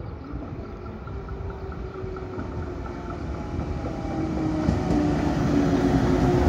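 A 115-series electric multiple-unit train arriving at a station. Its running noise grows steadily louder as it draws near, with a low hum that falls slightly in pitch as it slows.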